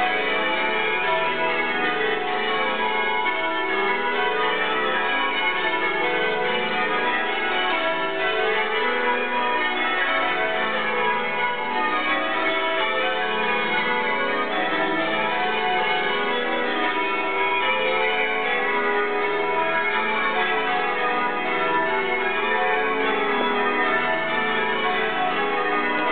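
Holy Trinity Church's tower bells ringing continuously, many bells sounding in quick, overlapping succession at a steady level: the call to a Sunday evening service.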